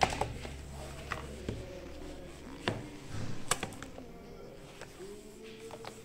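Cardboard packaging being handled: a few sharp taps and knocks of a small box against the speaker's box, over a low background hum that stops partway through.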